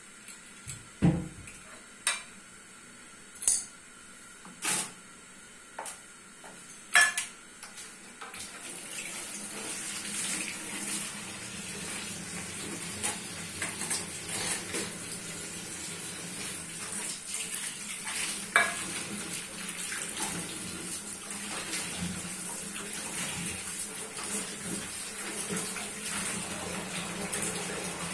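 Dishes and utensils clattering in a kitchen, about seven sharp knocks. About eight seconds in, a kitchen tap starts running steadily into the sink.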